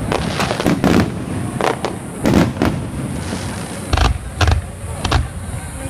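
Aerial fireworks going off in an irregular series of about ten sharp bangs, several of them followed by a low rumble.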